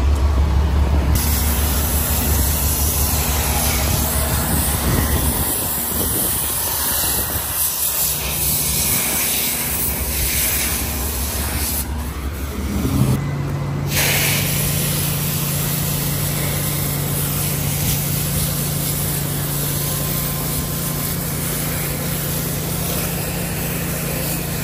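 Pressure washer running: a steady engine drone under the hiss of high-pressure water spraying from the gun into a sewer pipe opening. The engine's tone shifts about thirteen seconds in.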